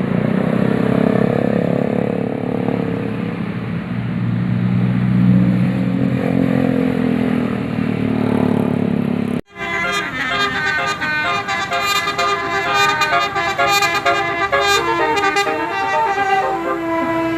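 A bus's low engine drone rises and falls in pitch as it passes. It cuts off suddenly about nine and a half seconds in, and a multi-tone 'telolet' air horn takes over, playing a quick melody in stepping notes.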